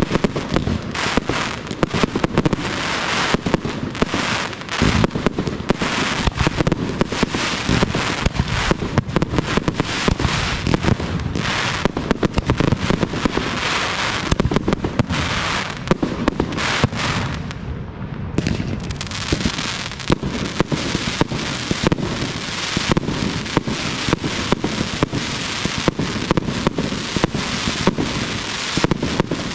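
Fireworks display: aerial shells bursting in a rapid, unbroken volley of bangs over dense crackling, the crackle easing briefly about eighteen seconds in.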